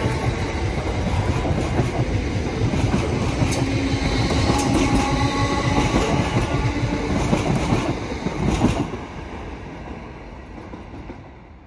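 Electric multiple unit running past on the main line, its wheels clattering over the track with a steady hum beneath. The sound drops off sharply about nine seconds in as the last carriage goes by, then fades away.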